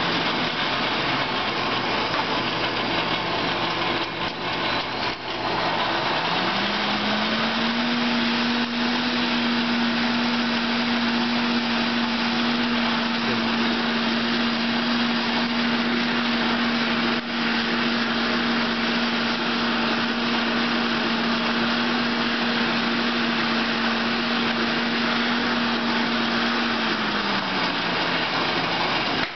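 Blower on a Champion coal forge running, with air blasting through the burning coal fire to bring the stock up to welding heat. A steady whine rises in pitch about six seconds in, holds, and falls back near the end.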